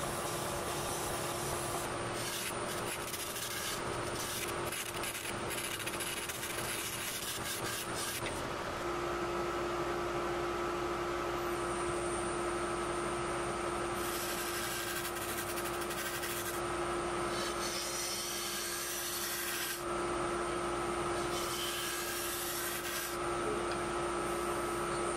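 Wood lathe spinning a 20-inch MDF disc with a steady hum, while a hand-held turning tool scrapes the spinning MDF to true it flat and round. The scraping is uneven for about the first eight seconds and steadier after.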